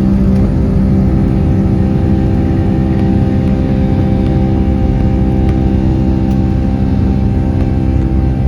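Steady drone of a Boeing 757-200's jet engines heard inside the cabin: a low rumble with several steady humming tones over it.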